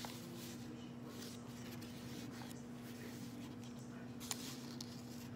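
Paper pages and tags of a handmade journal being handled, with soft rustling and a few light taps, the sharpest about four seconds in, over a steady low hum.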